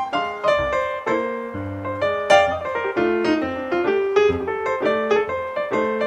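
Background piano music: a flowing melody of struck notes over lower chords.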